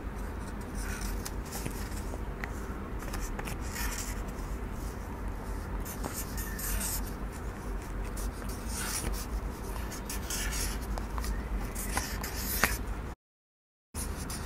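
Felt-tip marker scratching and tapping on card paper in short strokes as small hearts are drawn, over a low steady room hum. The sound drops out completely for a moment near the end.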